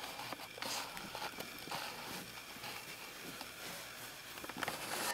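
Faint rustling with scattered light clicks and taps.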